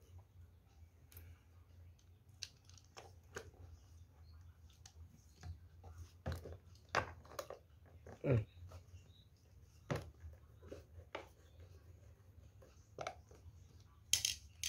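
Hands fitting a battery and its hold-down strap into a knapsack sprayer's plastic housing: scattered light clicks and knocks of plastic, with a few louder taps about six to ten seconds in and near the end, over a faint steady low hum.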